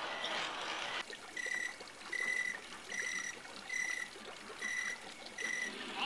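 A hiss that cuts off about a second in, then a G-scale model steam locomotive's sound-unit bell ringing steadily, one strike about every 0.8 seconds.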